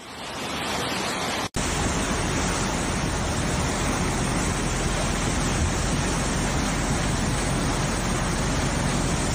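Steady rushing noise of a muddy flash-flood torrent surging down a channel, with an instant's break about a second and a half in.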